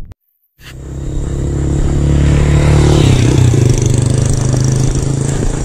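A motorcycle engine running close by, growing louder after a moment of silence and holding steady, with a change in pitch about three seconds in as it passes.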